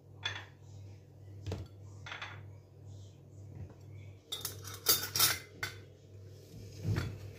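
Glass dishes and metal spoons being set out on a wooden tray: scattered light knocks and clinks, with a louder clatter of spoons and glass about four to five seconds in, over a faint low hum.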